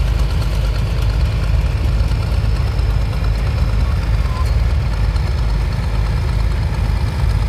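John Deere tractor engine running steadily at low speed as the tractor drives slowly past, a deep, even engine note.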